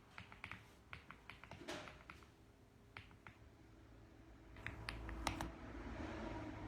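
Mechanical keyboard keys clicking in irregular, sparse typing with short pauses between bursts of keystrokes. A low hum comes up about halfway through.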